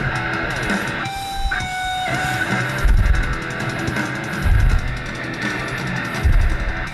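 Guitar music with strummed electric guitar playing from a portable Bluetooth speaker, with a few heavy bass hits.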